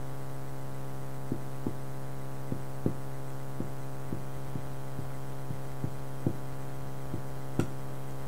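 Steady electrical hum with a stack of overtones, under irregular soft taps, about one or two a second, of a marker pen touching down on a whiteboard as someone writes. One sharper click comes near the end.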